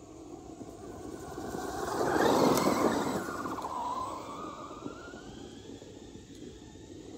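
Traxxas Hoss RC monster truck driving past on dirt: its electric motor whines up and down in pitch with throttle over a rush of tyre and gravel noise. It is loudest about two and a half seconds in, then fades as the truck moves away.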